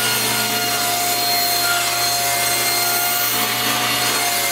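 Table saw running steadily with a held whine as it rips a poplar board lengthwise.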